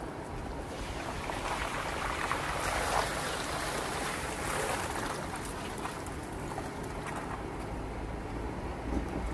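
Jeep Gladiator Rubicon driving, a low engine rumble under a steady rushing noise that swells for a few seconds near the middle.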